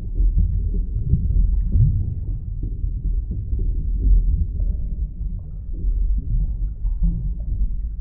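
A low, muffled rumble with a few brief rising swoops.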